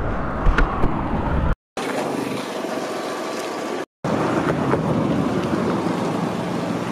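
Steady outdoor noise in three short stretches, each cut off by a brief dropout. The first stretch carries a deep rumble and two sharp clicks.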